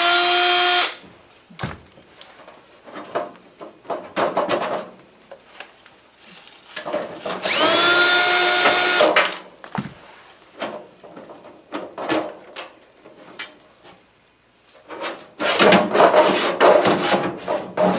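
Cordless drill-driver backing screws out of a furnace's sheet-metal access plate. The motor whines up quickly and then spins steadily in two short runs, one right at the start and a longer one about eight seconds in, with small clicks of screws and metal between. Near the end the sheet-metal plate clatters as it is pulled off.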